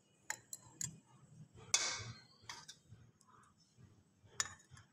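Ice cubes clinking against glass tumblers as they are put in: a few sharp clinks, one louder with a short rattle about two seconds in.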